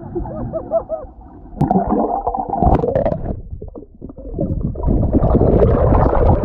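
Muffled underwater sound picked up by a submerged action camera: bubbles gurgling with small rising chirps, a quieter moment, then a louder rush of churning water in the last second or so as the camera nears the surface.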